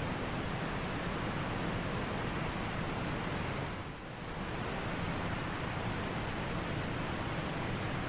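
Waterfall plunging into a pool: a steady rushing of falling water that dips briefly about halfway through.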